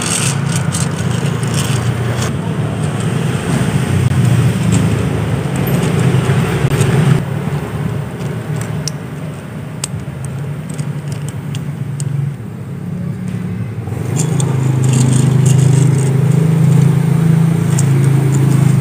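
A low, steady engine-like drone that dips about two-thirds of the way through and swells again, with light clicks and scrapes of a small plastic toy truck's wheels rolling over concrete.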